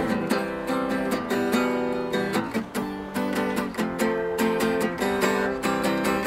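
Guitar strummed in a steady rhythm, several strums a second, improvising a made-up chord progression. Its low E string has snapped off, so it is played on five strings.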